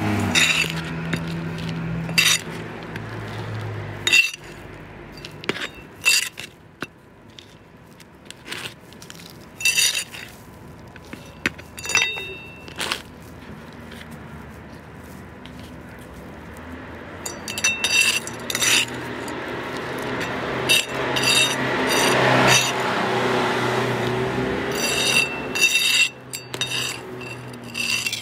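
A metal hand trowel scooping gritty potting soil with small clay pebbles and tipping it into a plastic pot: scattered sharp clinks with a brief metallic ring, and a longer stretch of soil scraping and pouring about two-thirds of the way through.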